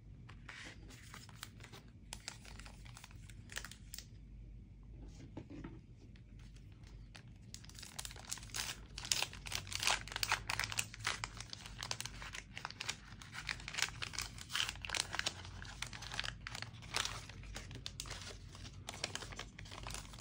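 Packaging being handled and torn open: crinkling and tearing, sparse at first, then dense and louder from about eight seconds in.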